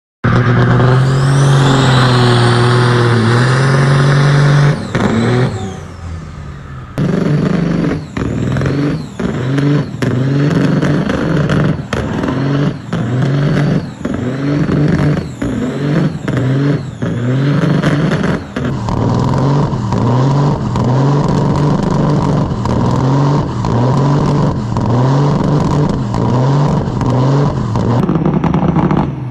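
Custom Freightliner semi truck's diesel engine revving hard during burnouts and donuts, its revs rising and falling about once a second, with the drive tyres spinning.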